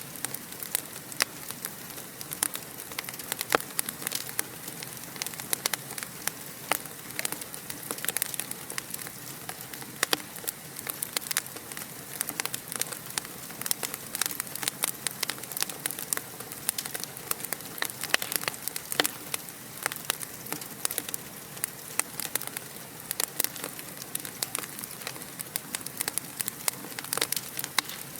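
Wood fire crackling steadily in a fireplace, with dense sharp pops and snaps over a soft hiss.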